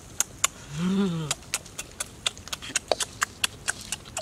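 Close-up chewing and lip-smacking: a quick, uneven run of wet clicks and smacks, with a short hummed "mmm" that rises and falls in pitch about a second in.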